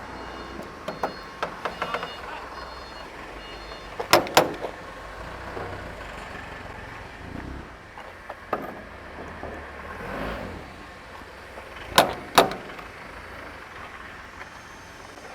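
Latches and panels of a screw air compressor's sheet-metal enclosure being opened: a string of sharp metallic clicks and knocks, with two loud double clicks about four and twelve seconds in, over a low steady hum.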